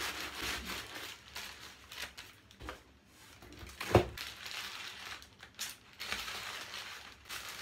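Paper packaging rustling and crinkling as a parcel is opened by hand and a paper-wrapped item is pulled out and unwrapped. A single sharp knock about four seconds in.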